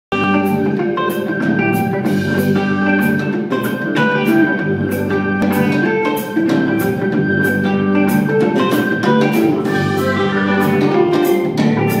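A band playing live in a sound check: held keyboard-like chords and melody notes over a steady beat of short, even cymbal or hi-hat strikes, about three a second.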